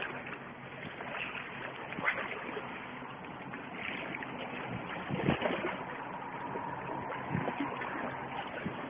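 Steady wind and sea noise along a rocky shoreline, with a few brief knocks about two, five and seven seconds in.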